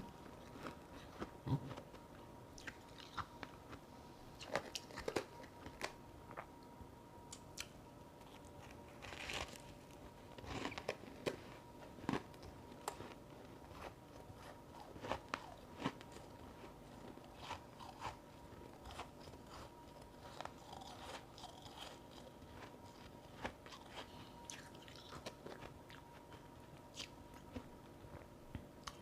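A person biting and chewing chunks of powdery frozen ice, giving irregular crisp crunches throughout, some louder than others.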